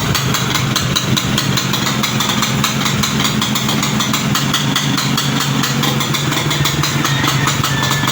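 Four-stroke scrambler motorcycle engine idling steadily through a freshly fitted bullet-style aftermarket exhaust, with even exhaust pulses.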